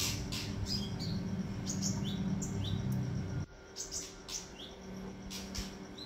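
Caged leafbird (kinoi) calling: a string of short high chirps and quick downward-slurred whistles, with a short break about halfway. A low steady hum underneath cuts off about three and a half seconds in.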